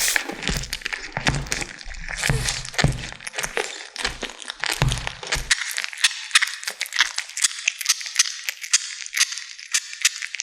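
Kittens chewing and tearing at a large chicken drumstick, a rapid run of wet clicks and crunches. Low thumps run under the first half and stop about five seconds in.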